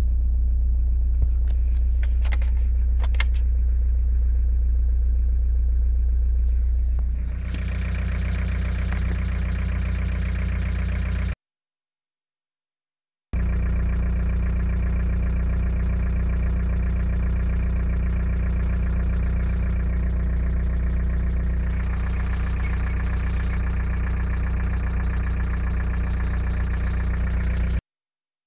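VW Golf III 1.9 TDI four-cylinder turbodiesel running at idle with its persistent ticking noise. New lifters, changed injectors and good oil pressure have not cured it, and the owner suspects play in a piston wrist pin. The sound cuts out completely for about two seconds partway through.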